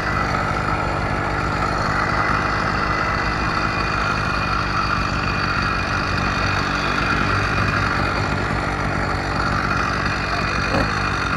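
Small engine of a motorized bicycle running steadily while the bike is ridden, with a brief click near the end.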